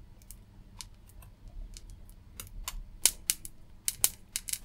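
Metal tweezers clicking and tapping on a circuit board as a large MOSFET is plucked off, its solder melted by a solder pot. Scattered sharp clicks, sparse at first, then coming thick and fast from about three seconds in.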